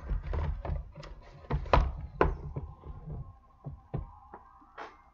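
Hands handling a cardboard trading-card box (2015 Luxe): a series of taps and knocks as it is opened and knocked against the table, the loudest about two seconds in.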